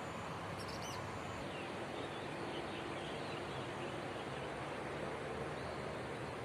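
Long-reach excavator's diesel engine running steadily, with a few bird chirps about a second in.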